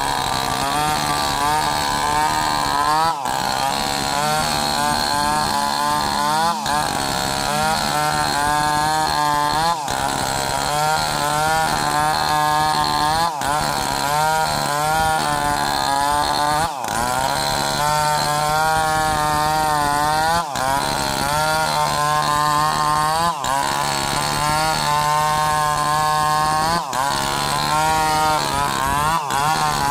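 Two-stroke chainsaws running at high speed and cutting into sengon (albizia) wood. The engine pitch keeps wavering as the chain loads up in the cut and frees again. The sound breaks off for an instant about every three seconds.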